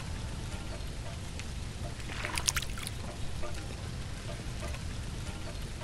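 Rain falling on a puddle and wet ground: a steady patter over a low rumble, with a short burst of sharper, louder drop hits about two and a half seconds in.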